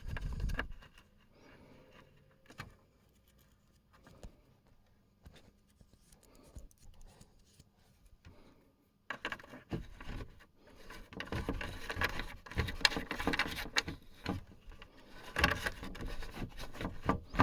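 Close handwork on small parts: quiet at first with a few isolated clicks, then from about halfway through a busy run of scraping, rubbing and clicking as pieces are handled and fitted.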